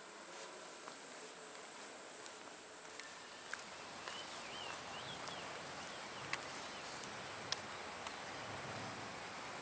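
Steady high-pitched drone of insects in summer vegetation, with a few sharp clicks and some faint short chirps about four seconds in.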